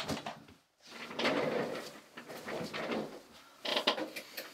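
Indoor handling noises: a door latch clicks at the start, then comes rustling as someone moves about and sits down in a mesh office chair, with a cluster of clicks and knocks near the end.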